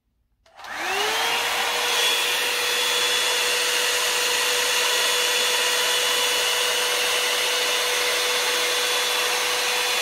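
Revlon One-Step hot-air brush dryer switched on about half a second in, its motor whine rising and levelling off within a second, then running steadily with a strong rush of air.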